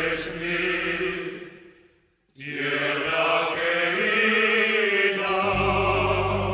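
A choir singing long held chords. The phrase dies away about two seconds in and the singing comes back in at once, with a deep low note joining near the end.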